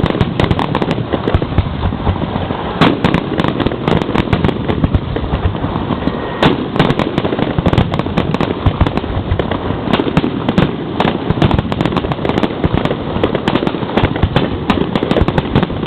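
Aerial fireworks heard close to the launch site: a dense, continuous barrage of rapid bangs and crackling.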